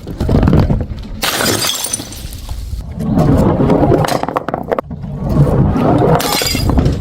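Glass bottles smashing: two sharp shattering crashes, about a second in and near the end, with heavy clattering and crunching of breaking glass between them.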